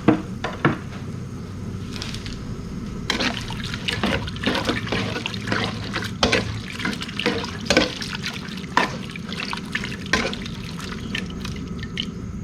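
Liquid sloshing in a cooking pot of pork stew as it is stirred, with frequent irregular clicks and knocks of the utensil against the pot.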